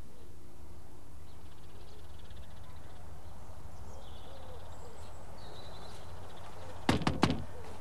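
Outdoor garden ambience: a steady low hum with faint birdsong chirping now and then. About seven seconds in comes a short cluster of loud, sharp sounds.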